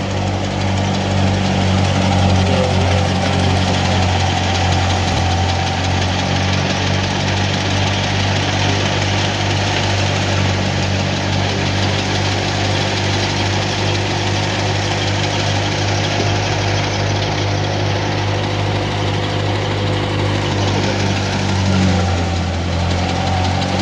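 Wheat thresher running steadily in the field, its driving engine's low drone mixed with the rushing, whirring noise of the threshing drum and the chaff being blown out onto the straw pile.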